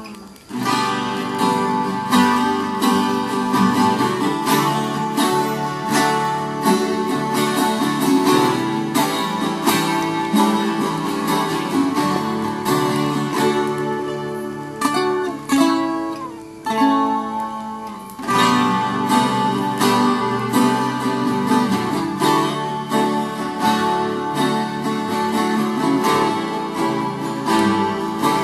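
Viola caipira, the Brazilian ten-string folk guitar, being played: a continuous run of plucked notes and chords.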